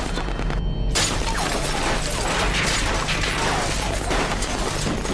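Dramatised gunfire sound effects: a dense run of shots and impacts with crashing and shattering, over a low droning music score.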